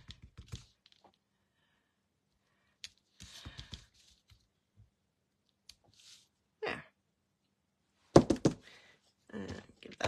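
Quiet tabletop handling of stamping tools: a few soft rustles and taps, then about eight seconds in a quick cluster of sharp hard-plastic knocks as the tools are set down on the table, the loudest sound here.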